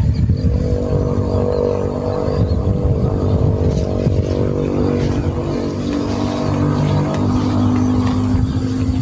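A small engine running steadily close by, with a slight shift in its pitch about halfway through.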